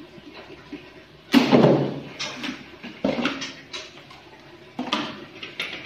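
PVC ceiling panels being handled on a tiled floor: hollow plastic knocking and sliding, one loud knock with a short scrape about a second in, then several smaller knocks and clicks.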